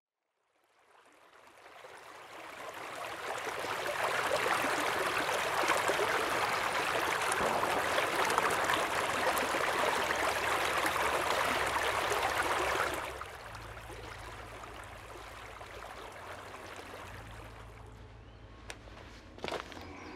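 A stream running, fading in over the first few seconds and cutting off sharply about two-thirds of the way through. A quieter low steady hum follows, with a couple of short knocks near the end as a spade goes into soil.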